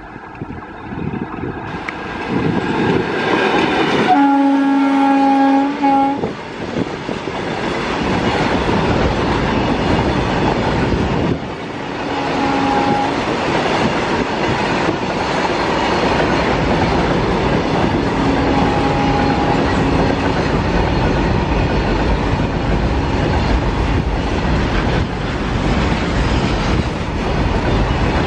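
Electric locomotive horn sounding a loud two-second blast about four seconds in as the freight train closes on the track, then the long rake of covered wagons rolling steadily past close by. Two shorter, fainter horn blasts come later.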